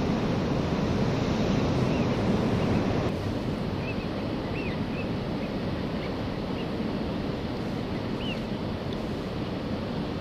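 Steady wind and choppy-water noise, which drops a little about three seconds in. Faint, short rising-and-falling whistles of drake Eurasian wigeon come several times over it after that.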